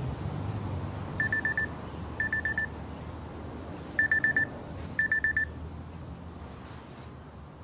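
Samsung Gear S3 frontier smartwatch wake-up alarm beeping: four short bursts of rapid high beeps, in two pairs, then stopping.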